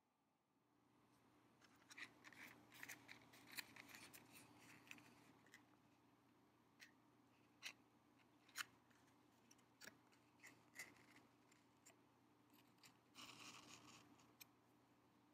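Quiet crisp clicks and scratchy rustles of a cardboard matchbox being handled and slid open, the wooden matches shifting inside. There are clusters of clicks at first, then single clicks, then a longer scratchy slide near the end.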